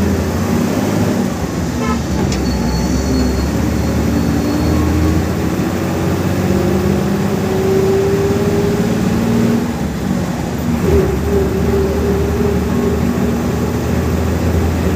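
Bus engine and road noise heard from the driver's cabin while the bus drives along. The engine note rises slowly as it pulls, drops about ten seconds in, then runs steady under a constant low rumble.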